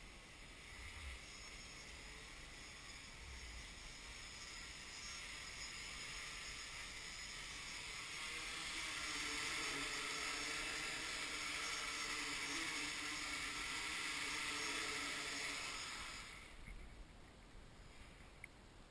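Quadcopter's motors and propellers whirring, growing louder as it comes down and hovers close, then cutting off abruptly about 16 seconds in as it sits on the ground.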